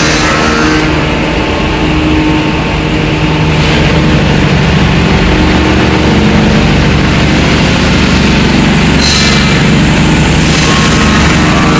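Wood-plastic composite (WPC) profile extrusion line running: a loud, steady machine drone with low hum tones, with a brief swell of hiss about four seconds in and again about nine seconds in.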